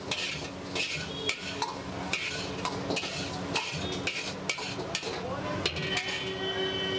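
Metal ladle scraping round a large metal kadai, stirring thick kadai chicken gravy, about two strokes a second over a steady low hum.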